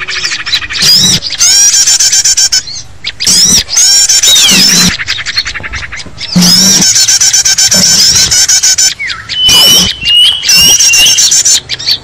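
Mixed small-bird lure recording: a loud, dense chorus of many small songbirds calling over one another, with fast high chattering trills and sweeping chirps. A few short, steady whistles stand out about two-thirds of the way in.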